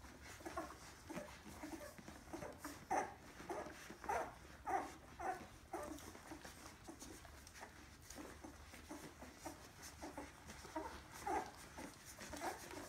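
Newborn kuvasz puppies squeaking and whimpering as they nurse: many short, high little calls in quick succession, busiest a few seconds in and again near the end.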